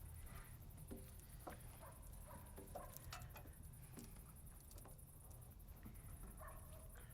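Near silence, with faint scattered clicks, light knocks and a few brief faint squeaks over a low hum.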